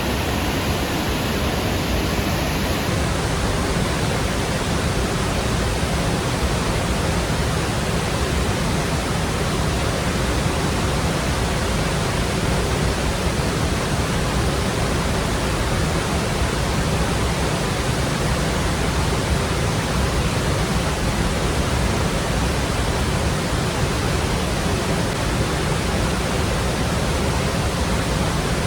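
Steady rushing of water pouring over the Lechfall on the Lech river, an even noise that does not change.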